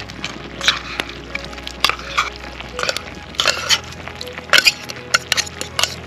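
Metal utensil scraping and clinking against a tin can as canned tuna is scraped out and dropped into a pan of simmering tomato sauce, in quick irregular clicks and scrapes throughout.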